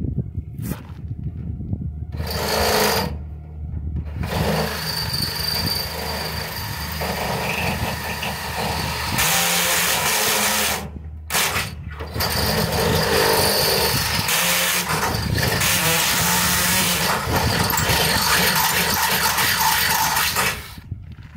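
Cordless drill boring holes through the metal framing profile of a fibre-cement wall panel. A short burst about two seconds in, then long runs of drilling with a brief stop near the middle, and the drill stops shortly before the end.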